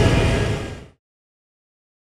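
Honda CBF600 motorcycle running on the move, with engine rumble and wind and road noise on the camera microphone, fading out within about a second.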